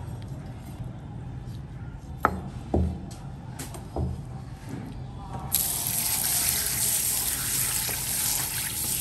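A few knocks on a plastic cutting board as the knife and snail meat are handled, then a little past halfway a kitchen tap is turned on and its spray runs steadily over the sea snail meat on the board.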